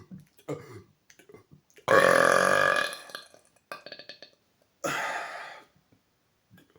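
A man burping loudly: a long burp lasting about a second starting about two seconds in, a smaller one after it, and another loud, shorter burp about five seconds in.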